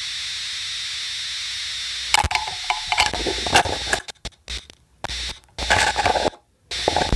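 Experimental electronic music made of noise: a steady hiss for about two seconds, then choppy, stuttering clicks and bursts of static that cut off abruptly into short silences.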